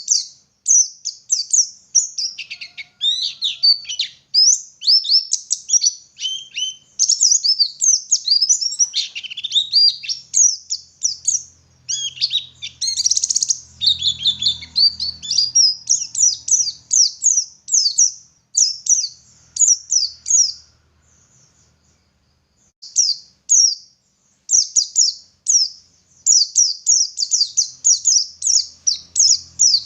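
Pleci (white-eye, Zosterops) singing long, fast runs of high chirping and twittering notes, with a brief pause about two-thirds of the way through.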